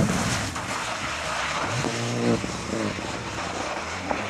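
Rally car engine revving as the car speeds away along a wet tarmac stage, over a steady hiss of tyres on the wet road throwing up spray. The engine note climbs again about two seconds in.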